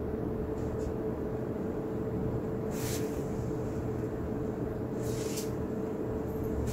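Steady low machine hum with a faint constant tone, broken by two short hissing rustles about three and five seconds in.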